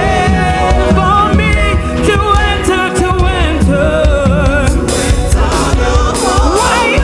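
Live gospel worship music from a multitrack recording of a church band: singers holding wavering sung lines over a band with heavy bass, with bright crashes coming in from about five seconds in.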